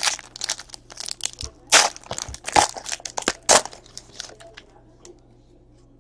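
Crinkling and crumpling of a trading-card pack wrapper as the pack is torn open and the wrapper is scrunched up, in a quick run of sharp crackles that stops about four and a half seconds in.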